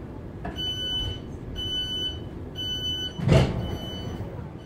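Class 707 Desiro City train's door-closing warning beeper sounding a high beep about once a second, four times, over the low rumble of the standing train. About three seconds in, a heavy thud, the loudest sound, as the doors shut.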